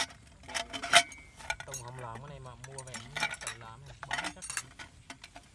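Sharp metal clinks and knocks of camp cookware and utensils being handled, scattered through, the loudest about a second in.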